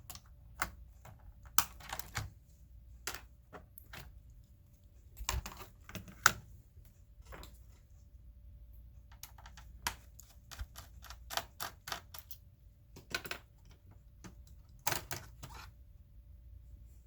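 Small clicks and taps of laptop parts being handled during disassembly. They come irregularly, some in quick clusters, with the sharpest click about six seconds in.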